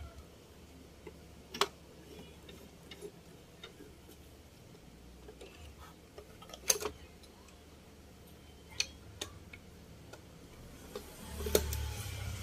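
Hands setting up a sewing machine's thread and fabric at the needle: a handful of sharp, scattered clicks and taps from the machine's parts, the loudest about two-thirds in, over a faint low hum.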